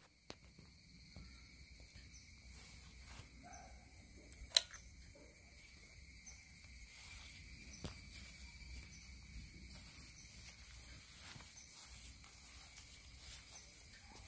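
Faint outdoor ambience of steady high-pitched insect trilling, with small handling ticks and one sharp click about four and a half seconds in.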